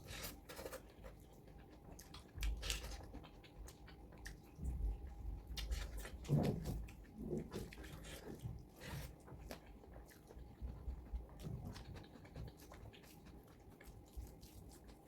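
Faint eating sounds: scattered soft clicks and wet mouth noises of someone chewing food.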